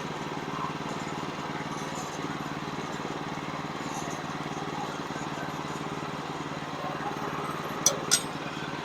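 Small gasoline engine of a portable bandsaw sawmill running steadily at an even speed. Two sharp clicks come close together near the end.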